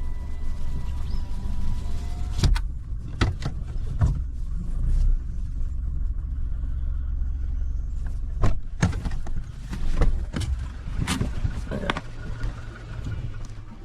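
Car engine running with a steady low rumble, with scattered knocks and rattles through it; the engine sound drops away near the end.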